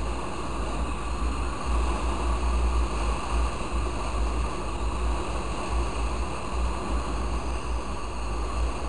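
Wind rushing and buffeting on the microphone of a moving motorcycle: a steady rush with an uneven low rumble, with the bike's road noise beneath.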